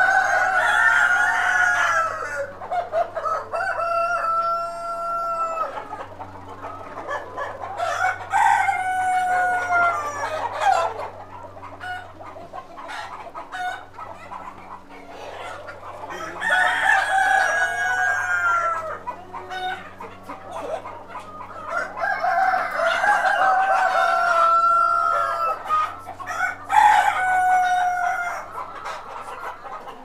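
Roosters in a shed full of Black Australorp and desi chickens crowing again and again: about six long crows a few seconds apart, some overlapping, over a steady low hum.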